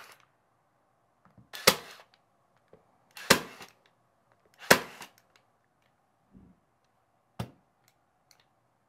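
Milwaukee M12 cordless 3/8-inch crown stapler (2447-20) firing staples through a thick, rubbery sheet into wood. Four sharp shots, each with a short ring, come about a second and a half apart. The fourth, after a longer gap near the end, is fainter.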